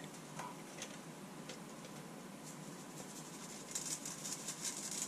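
Minced onions cooking in oil in a skillet, a faint steady sizzle with scattered small pops. About four seconds in comes a quick run of dry, high rattles as seasoning is shaken from a small jar over the pan.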